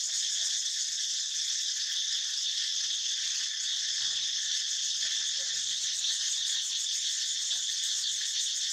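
Insects droning in a steady high-pitched chorus, unbroken and even in level, with a few faint short sounds underneath.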